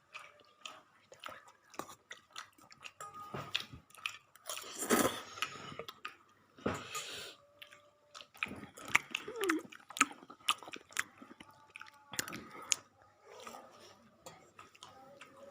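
A person biting and chewing crunchy food close up, with irregular crunches and clicks and a couple of louder crunchy bursts about five and seven seconds in.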